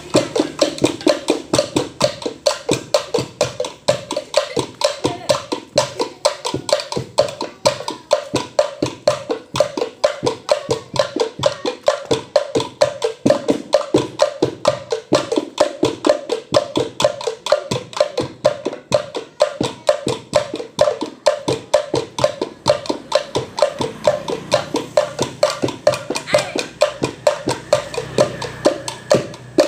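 Tongklek music: bamboo kentongan slit drums struck in a rapid, even beat, with pitched wooden tones over it.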